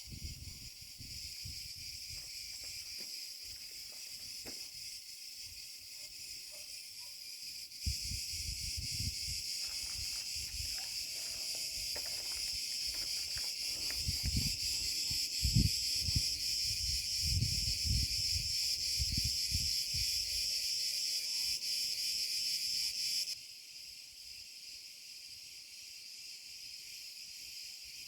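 Cretan cicadas (Cicada cretensis) singing in chorus, a steady high buzz that gets louder about eight seconds in and drops back near the end. Scattered low thuds sit underneath.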